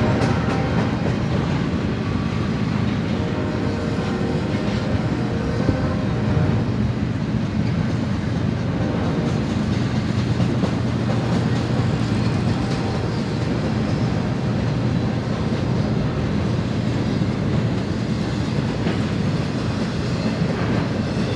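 BNSF double-stack intermodal freight train rolling steadily past, its container-laden well cars running over the rails with a continuous low rumble of wheels and rail joints.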